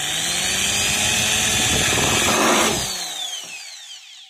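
Black + Decker 550 W hammer drill running, its bit grinding through the thin tin lid of a paint can, loudest about two and a half seconds in. About three seconds in the trigger is let go and the motor winds down with a falling whine.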